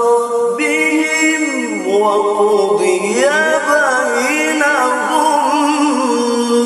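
A man reciting the Quran in the melodic tilawah style into a microphone, drawing out long ornamented notes with no clear words. The pitch dips and climbs again about two to three seconds in.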